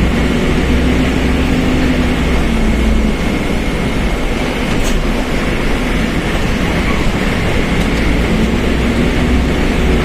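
Mercedes-Benz OF1721 BlueTec 5 bus running steadily under way: engine and drivetrain rumble with a steady high whine, the differential droning loudly.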